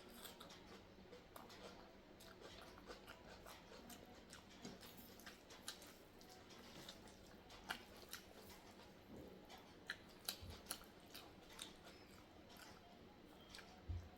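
Close-up chewing and mouth sounds of a person eating sambar rice with raw onion salad: quiet, irregular wet clicks and smacks, with a few sharper ones about two-thirds of the way through.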